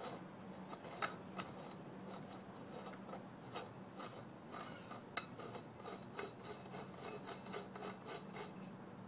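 Threaded steel pipe being screwed by hand into a galvanized steel pipe fitting: metal threads scraping and clicking in short rasps, coming faster in the second half, over a faint steady hum.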